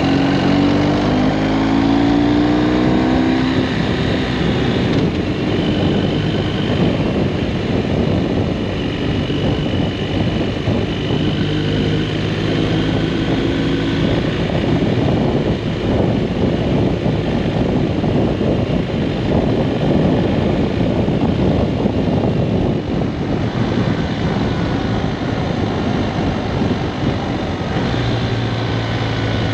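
BMW R1250RS's boxer-twin engine running under heavy wind noise buffeting a jacket-mounted microphone. The engine pitch rises over the first few seconds as the bike accelerates, then holds fairly steady while cruising.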